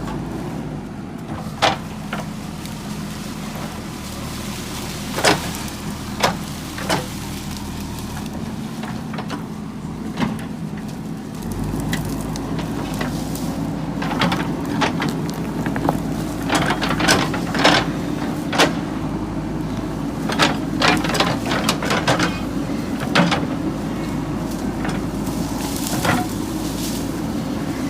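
JCB 3DX backhoe loader's diesel engine running steadily under work, with scattered sharp clanks and knocks from the bucket and linkage working soil. The engine note deepens and grows louder a little before halfway, and the knocks come thick and fast in the second half.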